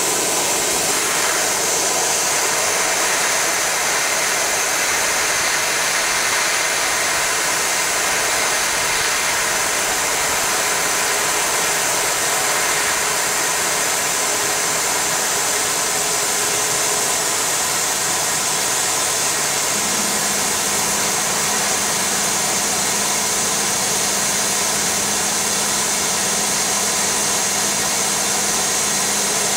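80 W CO2 laser cutting machine running while it cuts a PVC sheet: a steady, even hiss, with a low hum joining about twenty seconds in.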